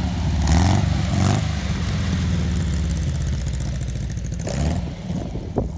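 An engine running steadily at low pitch, with a few loud rushing bursts about half a second and a second and a half in; the running fades about a second before the end.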